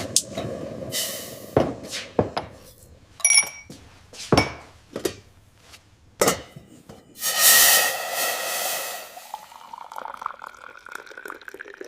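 Kitchen sounds: scattered clinks and knocks of dishes and glass, with a burst of running water about seven seconds in and a pitch that then rises like a vessel being filled.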